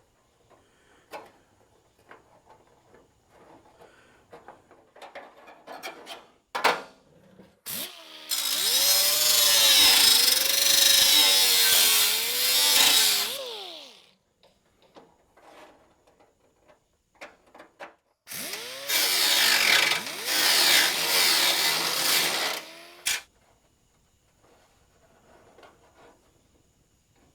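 Electric grinder working the sheet-steel patch panel in two runs of about five seconds each, spinning up, its pitch sagging and wavering as it bites the metal, then winding down. Light taps and handling of metal come before the first run.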